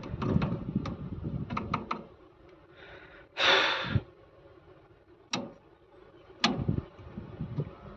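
Sharp clicks from a three-phase pump-motor starter's contactor being pressed in by hand with a rod, twice about a second apart, after a short rush of noise. No motor hum follows: the pump does not start.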